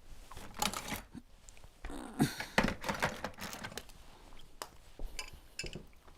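Irregular clicks, knocks and rattles of hand work, the sound of tools and fittings being handled while a water heater's water line is being hooked back up, with a busier cluster of knocks about two to three seconds in.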